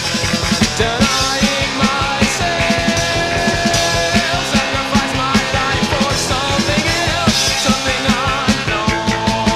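Post-punk rock song from a 1983 record: drums, bass and electric guitar playing together over a steady, fast beat.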